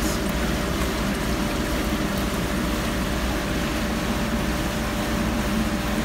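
Commercial Ecolab dishwasher running on with its pump and wash jets going and water spraying out beneath the machine, a steady hum and rush with a faint steady tone. The machine is malfunctioning, a fault traced to a faulty controller.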